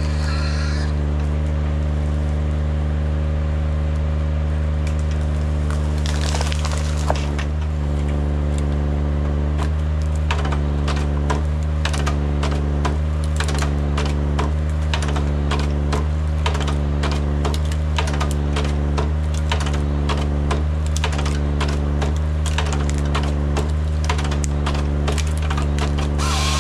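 Kranman Bison 11 000 forwarder's engine running steadily under hydraulic load while its Jobo ST35 harvester head feeds a stem through and delimbs it. From about seven seconds in, branches crack and snap off in a dense run of sharp clicks, and the machine's note shifts in a regular pulse about once a second as the stem is fed.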